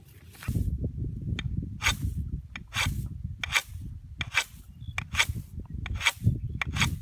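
Repeated scraping or rubbing strokes, about one a second, over a low rumble.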